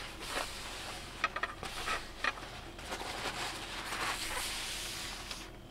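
Paper tissue rubbing across a table top, wiping up spilled rust grains, with a few light clicks and taps in between.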